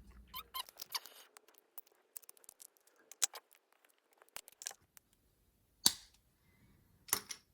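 Scattered light clicks and taps from handling the parts of a cylindrical lead-acid battery cell and its pack during a teardown, with a sharper click about six seconds in and a short run of clicks near the end.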